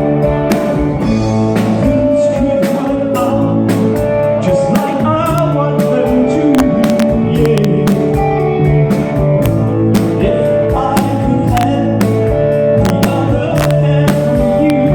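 Live rock band playing a 1960s mod-style song with electric guitar and drum kit, a voice singing over it.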